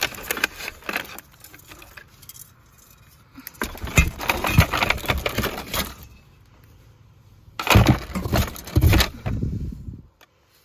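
Ceramic and glass decorations clinking and knocking together, with rustling, as a hand rummages through a cardboard box of Halloween items, in three bursts: at the start, about four seconds in, and about eight seconds in.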